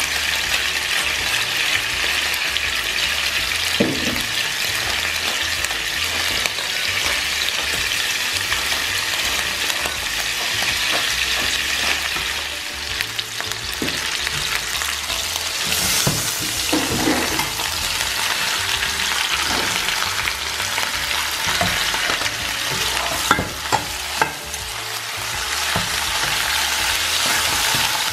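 Bone-in lamb ribs searing in hot oil in a frying pan: a steady sizzle, with a few short knocks of metal tongs and a fork against the pan as the meat is turned.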